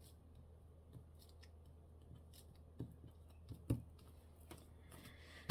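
Faint handling of paper and craft tools on a tabletop: a few scattered light clicks and taps, the sharpest pair about three and a half seconds in, over a steady low hum.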